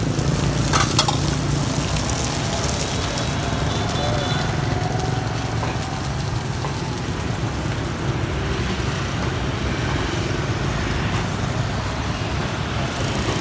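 Steady roadside noise: the sizzle of frying on a street-food cart's pan mixed with the hum of passing motorbike traffic, with faint voices now and then.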